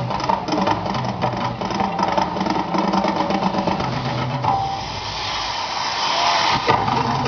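Mirage Volcano attraction running its eruption effects: a dense, steady rumble, then a loud hissing rush for about two seconds from about halfway in, ending suddenly.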